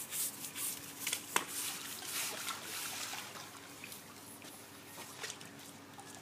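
Water splashing and trickling as a pool brush on a pole scrubs the wet tile edge of a spa, with a sharp knock about a second and a half in. It grows quieter in the second half.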